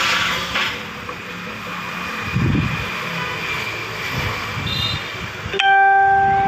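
Steady outdoor background noise. Near the end a single loud, steady horn-like tone starts suddenly and holds for about a second and a half.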